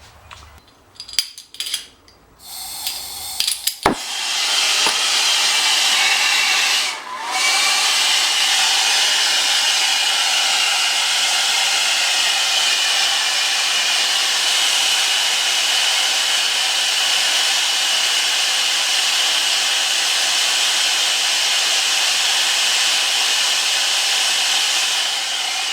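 Brazing torch: a few clicks, then it lights with a sharp pop about four seconds in and burns with a loud, steady hiss, dipping briefly once, while the pinched end of a copper tube is brazed shut.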